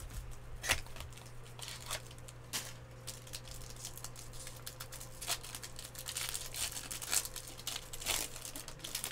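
Foil wrapper of a sealed trading-card pack crinkling and tearing as it is opened by hand: irregular sharp crackles throughout, over a steady low hum.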